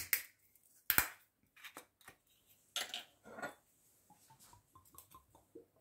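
Kitchen handling noises as a glass olive oil bottle is handled and a metal spoon is picked up off the counter: a few sharp clicks at the start and about a second in, a short scraping rustle about three seconds in, then faint light ticks.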